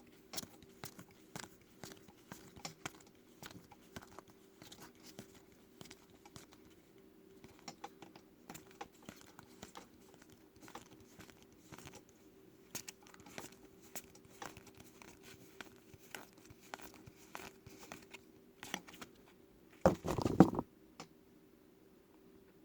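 Trading cards being flipped through by hand, a steady string of soft clicks and flicks as each card is slid off the pile, with one louder rustle of handling about 20 seconds in.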